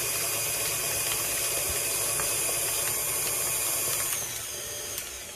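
Electric mixer running steadily, creaming butter and shortening with sugar. About four seconds in the sound drops off and gets quieter, and a single click follows near the end.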